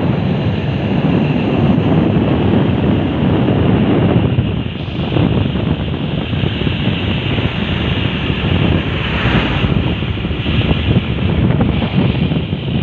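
Loud, steady wind rushing over the microphone in a moving vehicle, with road noise underneath.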